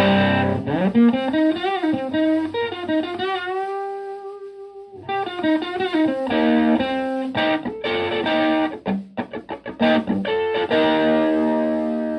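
Stratocaster electric guitar through a Höfner 'The Höf' preamp driving a Fender Twin Reverb–style tube amp into overdrive. It plays a chord, then a single note bent up and held with vibrato until it fades, then a run of short picked notes and chords, and ends on a chord left ringing.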